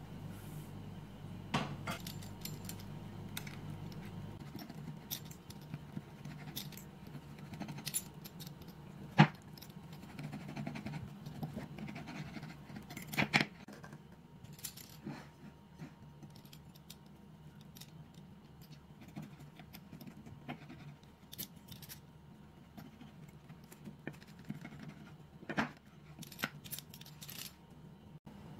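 Toasted, filled tortilla being sliced on a ceramic plate: scattered crisp scraping and sharp clicks of the blade against the plate, the loudest click about nine seconds in.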